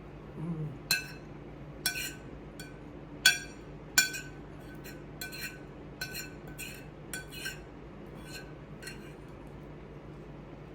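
An eating utensil clinking against a dish while eating, about a dozen irregular clinks, each ringing briefly at the same pitch. The loudest come about three and four seconds in.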